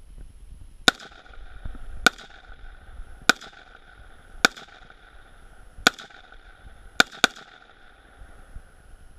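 Seven rifle shots, spaced roughly a second or more apart, the last two in quick succession, each ringing out briefly afterwards.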